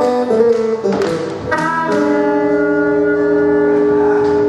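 Harmonica playing a short run of changing notes, then holding one long chord for about two and a half seconds, over strummed acoustic guitar.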